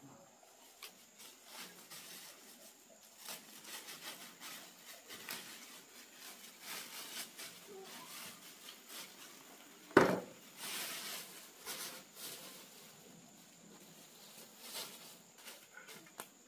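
White plastic sack rustling and crackling in fits as it is handled and spread out, with a single sharp knock about ten seconds in.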